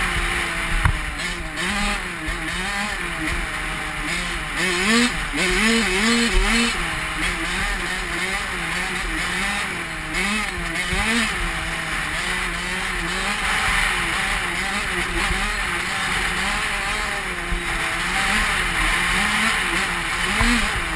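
Honda CR85 two-stroke dirt bike engine running under way, its pitch rising and falling as the throttle is worked, with several quick rises and falls about five to six seconds in. Steady wind rush on the helmet-mounted camera runs under it.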